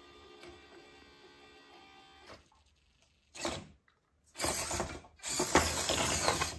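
Faint background music, then after a short silence the mini RC crawler's electric motor and gears whirring in three bursts, each longer and louder than the last, as the little truck struggles on the ramp and tips over.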